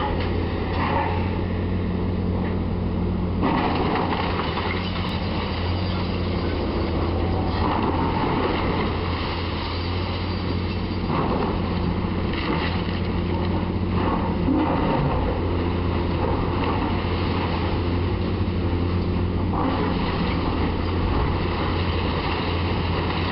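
Volvo hydraulic excavator's diesel engine running steadily under load while its demolition arm tears into a brick building, with repeated crunching and crashing of masonry and debris that starts and stops several times.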